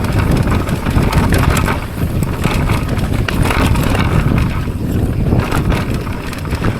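Wind buffeting the microphone over a bicycle rattling and clattering across a bumpy trail at speed, with many small knocks.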